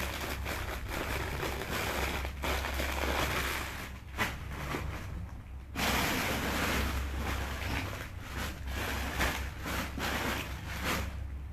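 Rustling and soft knocks of things being handled, over a steady low hum.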